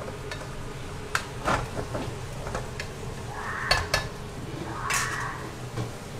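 A spatula stirring and scraping through a braise of pork belly, potato and tofu skin in a pot, with scattered sharp clicks and knocks against the pot, two close together a little before four seconds in.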